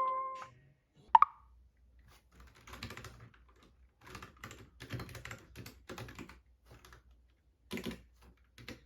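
Typing on a computer keyboard: irregular runs of key clicks with short pauses. About a second in, a single short pitched plink comes before the typing.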